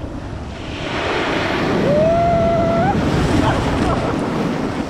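Ocean surf breaking and rushing around a camera held at water level, the churning white water swelling to its loudest about a second in as a wave comes through.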